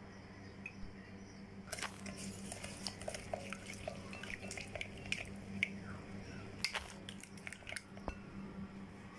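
Silicone spatula stirring egg and sugar in a glass bowl: irregular wet squishing with small scrapes and clicks against the glass, starting about two seconds in and easing off near the end, over a steady low hum.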